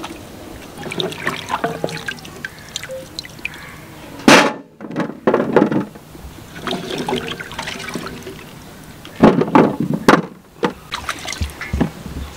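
Carrots being washed by hand in a metal basin of water: irregular splashing and sloshing. The loudest splashes come about four seconds in, again just after five seconds, and around nine to ten seconds.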